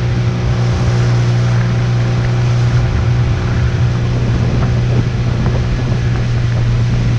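Small speedboat's outboard motor running steadily at cruising speed, a constant low drone, with water rushing along the hull.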